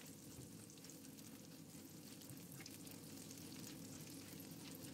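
Faint sizzle of minced garlic and ginger frying in a little oil, with small crackles and the light scrape of a silicone spatula stirring them around the nonstick pan.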